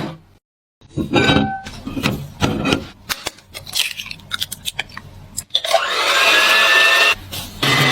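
Kitchen food-preparation sounds in quick, abruptly cut succession: a run of sharp clicks and knocks, then a steady whirring noise with a whine for about a second and a half, a little over halfway through.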